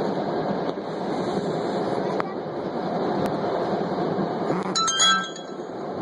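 New Jersey Transit passenger train running, a steady rumble heard from inside the car. About five seconds in comes a brief, bright metallic clink with a short ring.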